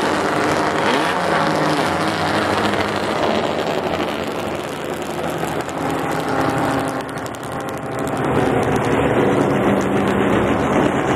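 Historic racing cars' engines running hard on the circuit. The sound dips a little about seven seconds in, then builds again loudly as more cars come through.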